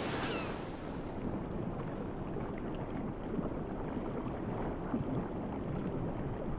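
Steady rushing sea ambience, a low, even noise of water and wind with no distinct calls or splashes.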